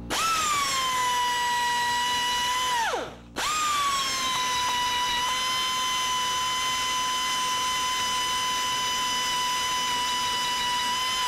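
Die grinder with a round burr running with a steady high whine while porting the inside of an LS1 oil pump housing, smoothing sharp edges in the oil passages. About 3 s in it spins down and stops, then starts again half a second later and runs on steadily; each start briefly peaks a little higher in pitch before it settles.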